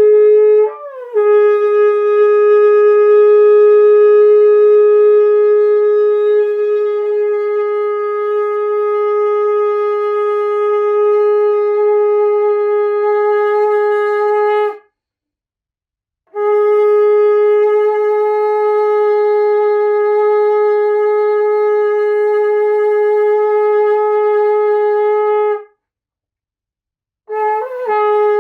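Shofar blown in long held blasts on one steady note. The first lasts about fourteen seconds, with a brief crack up in pitch at its start; after a pause a second runs about nine seconds, and a third starts near the end.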